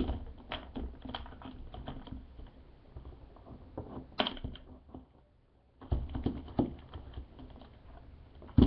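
Light clicks and taps of plastic spice jars and their lids being handled, with a brief pause about five seconds in and one louder knock at the very end.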